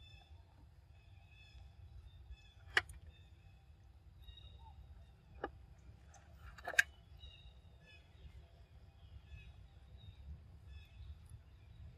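Three sharp cracks, about three, five and a half and seven seconds in, the last the loudest, as macaques crack peanut shells on a stone block. Faint chirping and a low rumble run underneath.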